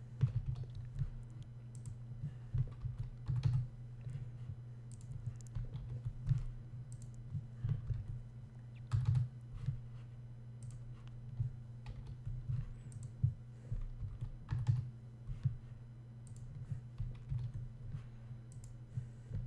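Computer keyboard keys pressed in scattered, irregular strokes while text is pasted and blank lines are added in a document, over a steady low hum.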